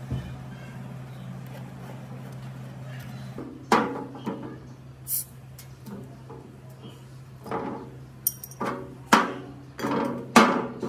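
Glass beer bottles being opened with a pipe wrench used as a bottle opener: a run of sharp clinks and knocks as the jaw catches the crown caps and pries them off, with a few short hisses, starting about three seconds in and coming thicker near the end.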